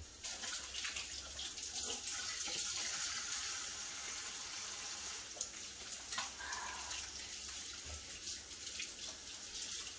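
Kitchen sink faucet turned on and running steadily into the sink while hands are washed under the stream.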